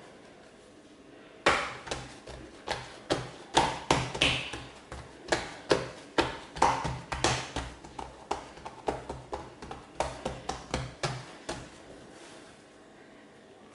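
A quick run of sharp knocks on a wooden surface, about two a second, that stops near the end.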